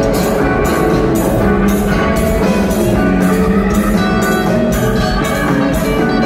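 Live band playing an instrumental jam on drum kit, electric guitars and keyboards, the cymbals keeping a steady beat about two strokes a second under sustained guitar and keyboard notes. Heard from the audience in a large hall.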